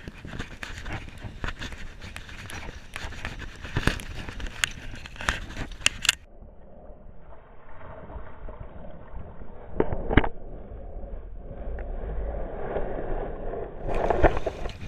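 Atlantic salmon splashing and thrashing at the surface beside a wading angler, mixed with close scraping, rubbing and knocks of clothing and gear against the chest-mounted camera. About six seconds in, the sound turns muffled until near the end, with a few sharp knocks near the middle.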